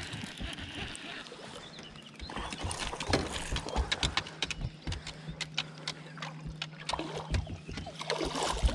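Irregular knocks and clicks of handling on a bass fishing boat, with a steady low hum that starts a few seconds in.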